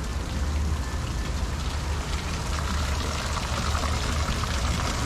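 Water pouring from a decorative water spout and splashing, growing stronger about halfway through, over a steady low rumble.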